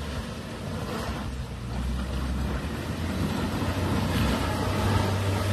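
Engine of a BAIC BJ40 SUV pulling hard in four-wheel drive up a steep, muddy slope, its note growing louder through the climb and peaking near the end.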